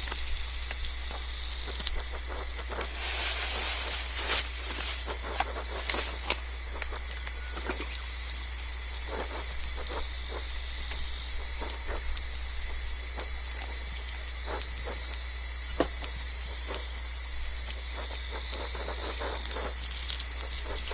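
Pork sizzling and steaming on a camp grill, a steady hiss broken by scattered crackles and pops. The pork is frozen, so it is slow to cook.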